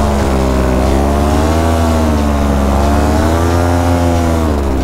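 Paramotor engine and propeller running in low flight, the engine's pitch slowly wavering up and down as the throttle changes.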